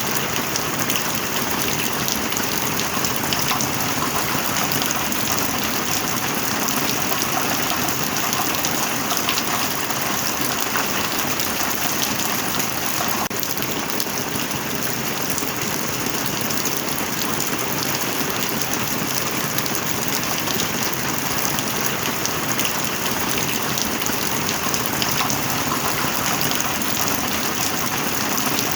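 Heavy rain falling steadily, a dense continuous patter of drops.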